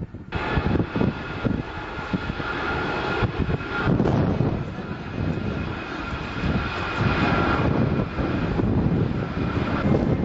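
Airbus A380's four jet engines running, a steady high whine over a heavy, uneven rumble.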